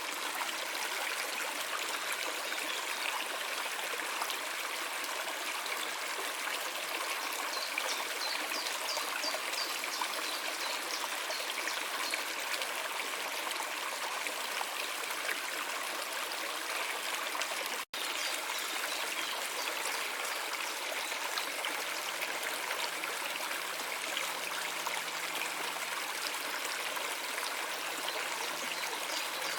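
Stream water running steadily over stones, an even rushing trickle. It cuts out for an instant about two-thirds of the way through, then carries on unchanged.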